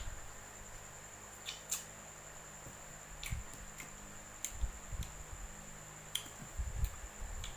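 Close-up eating sounds of mango: scattered crisp bites and chewing clicks, wet mouth sounds and soft low thumps, every second or so.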